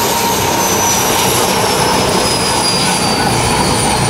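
Bell 205 (Huey) helicopter running on the ground, its main and tail rotors turning. The Lycoming T53 turbine gives a steady rushing noise with a high whine that slowly falls in pitch.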